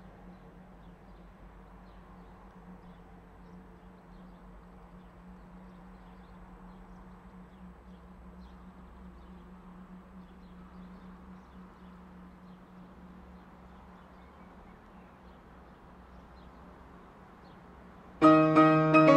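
A faint, steady low hum with scattered faint high ticks. Near the end, piano music starts suddenly and much louder.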